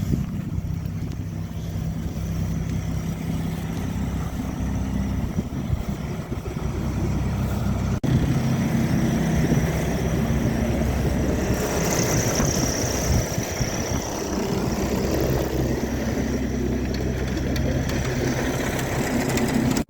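Semi truck's diesel engine running steadily, a low even hum.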